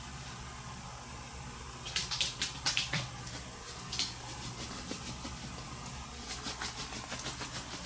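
Small clicks and rustles of pliers and fine jewelry wire being handled and bent, a cluster about two seconds in and another near four seconds, then faint light ticks, over a steady low hum.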